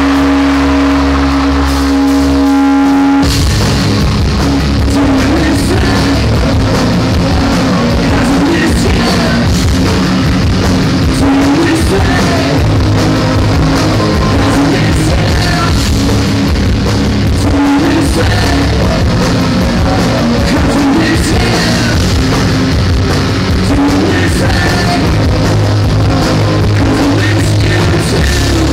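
Live rock band playing loud through a venue PA, recorded from the audience, with electric guitars, drum kit and sung vocals. It opens on a held, ringing chord, and the full band comes back in about three seconds in.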